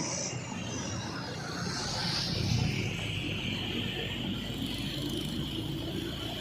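Steady road-traffic noise from a passing vehicle on the road, with no horn tune sounding.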